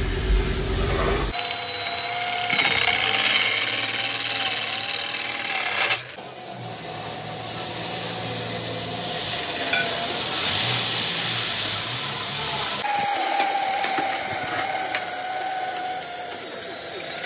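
Power tools working steel, heard in several short clips cut together: a steady hiss with a wavering whine over it.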